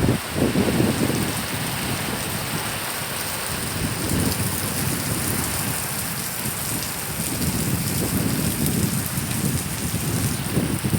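Heavy rain pouring steadily, with gusts of strong wind buffeting the microphone as low rumbles near the start and again in the latter part.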